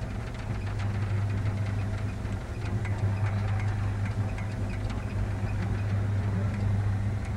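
A steady low mechanical hum, like a motor or vehicle running, with scattered faint ticks.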